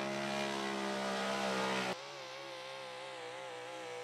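Pulling truck's engine running at steady high revs, cut off suddenly about two seconds in and replaced by a quieter engine sound whose pitch wavers up and down.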